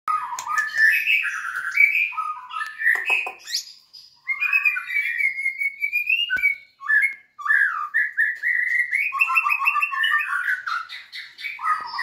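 White-rumped shama singing a long, varied song: quick chirped phrases, a long slowly rising whistle a few seconds in, then fast rattling trills, broken by two short pauses. A single sharp click about six seconds in.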